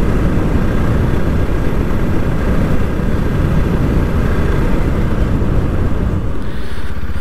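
Steady wind rush buffeting the helmet microphone of a moving Bajaj Pulsar NS200 motorcycle, with the engine running underneath. The low rumble eases a little near the end.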